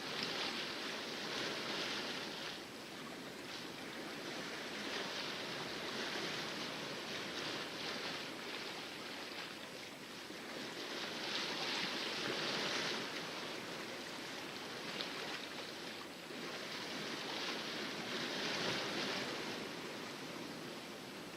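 Water splashing and rushing along the hull of a sailboat sailing in calm seas, swelling and easing every few seconds.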